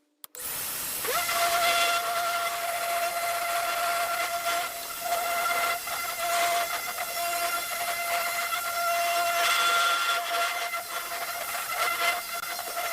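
A small electric power tool's motor spins up about a second in and then runs steadily, with a high whine over a hiss.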